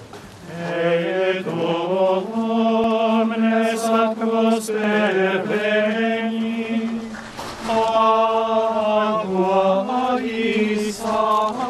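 Men's voices of Trappist monks singing a chant in unison, one melodic line of long held notes, with a short break about seven seconds in.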